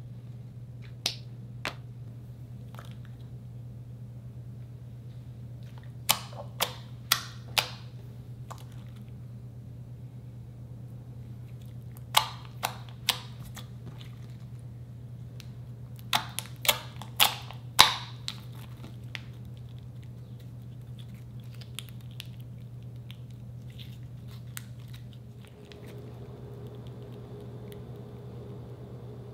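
Slime being squeezed and folded by hand, giving clusters of sharp wet pops and clicks, several in quick succession, over a steady low hum.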